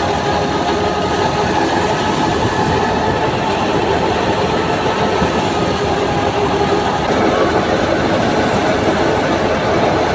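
Belt-driven wheat thresher running steadily while wheat is fed into it: a loud, continuous mechanical din with a constant hum under it.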